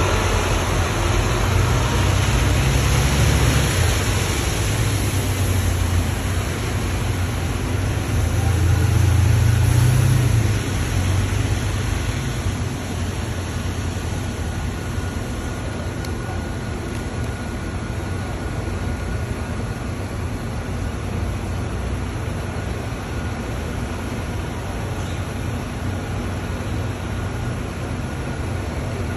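A city bus's diesel engine running as it passes close by on wet pavement. The low rumble is loudest about nine seconds in and drops away after about eleven seconds, leaving a steady background hum of the bus interchange.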